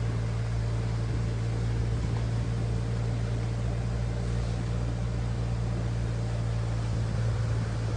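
Force Gurkha's diesel engine running at a steady low hum, heard from inside the cabin while the 4x4 is driven slowly.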